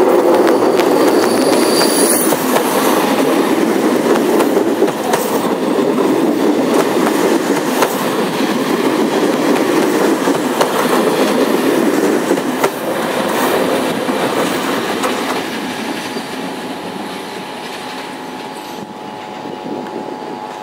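Electric-locomotive-hauled passenger train passing close by, its wheels rumbling and clacking on the rails. The noise stays strong for about twelve seconds, then fades as the last coaches go by and the train draws away.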